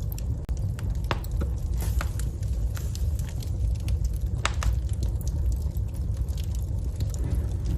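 Wood fire burning in a fireplace and crackling, with sharp, irregular pops, a few a second, over a steady low rumble of the flames.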